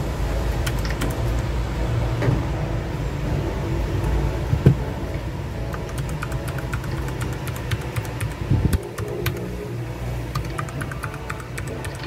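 Typing on a Royal Kludge RK100 mechanical keyboard with Outemu switches: a run of key clicks, sparse at first and coming thick and fast in the second half. A steady low rumble sits underneath and drops away about nine seconds in.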